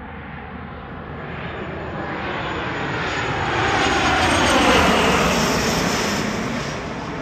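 Cessna Citation X's twin Rolls-Royce AE 3007 turbofan jet engines at approach power as the jet passes low overhead on final approach, gear down. The roar and whine swell to a peak about two-thirds of the way through, then fade with the pitch dropping as it goes past.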